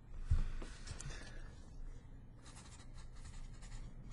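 Felt-tip Sharpie marker writing on paper in short scratchy strokes, with a soft bump about a third of a second in.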